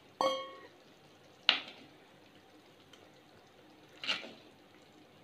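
Three knocks of a metal ladle against steel cookware while thick curry is ladled into a stainless steel bowl; the first strike rings briefly with a clear metallic tone.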